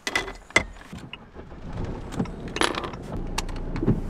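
A series of sharp clicks and knocks, the loudest about half a second in, over a low steady rumble that grows louder about three seconds in.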